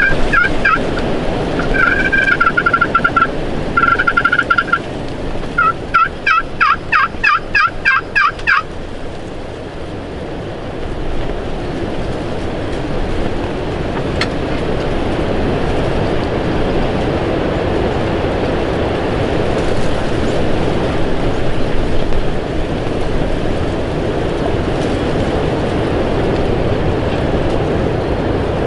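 Turkey yelping: a few drawn-out notes, then a quick run of about ten yelps that stops after about eight seconds. Steady wind noise on the microphone fills the rest.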